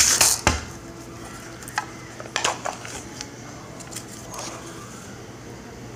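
Light clicks and taps of kitchenware being handled over a metal muffin tin, after a short burst of shaking noise at the start.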